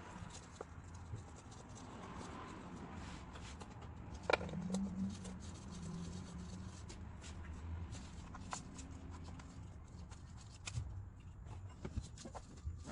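Scattered small clicks, taps and clinks of hand tools and metal parts being handled during engine reassembly, with one sharper click about four seconds in.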